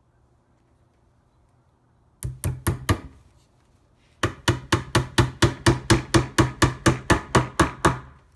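Claw hammer tapping metal tacks through a leather corner into an amplifier cabinet. A quick run of four taps comes about two seconds in, then after a short pause a steady run of about eighteen taps, roughly five a second, stops just before the end.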